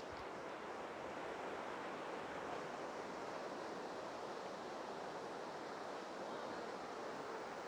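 Steady, even rushing hiss of background ambience, with no distinct events.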